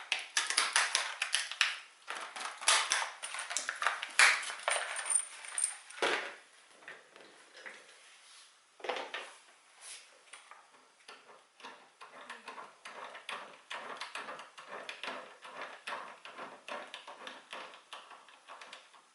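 Metal clinking and clattering of screws and chair hardware being handled while fitting the armrests, then a long run of quieter, fairly even quick clicks as the screws are turned in.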